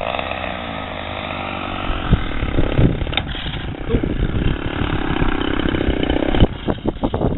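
Engine of a Balsa USA Stingray 120 radio-controlled model airplane running as it flies a low pass along the runway. From about two seconds in, wind buffets the microphone.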